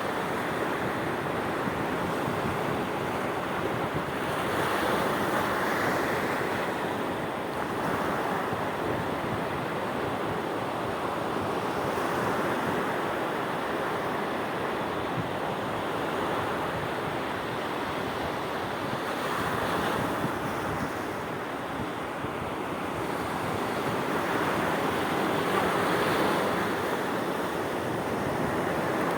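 Sea waves washing ashore in a continuous rush, swelling and easing as each wave breaks every six to seven seconds, with some wind noise on the microphone.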